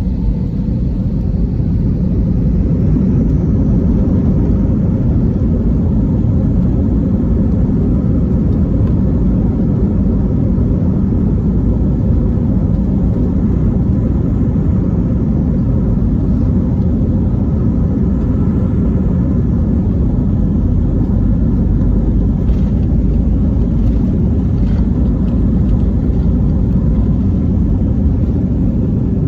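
Airbus A320 jet engines at takeoff power: a loud, steady, deep rumble that builds over the first few seconds, then holds.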